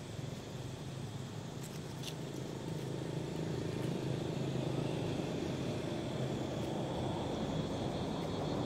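Low steady rumble of motor traffic, growing louder about three seconds in, with a faint steady high whine above it.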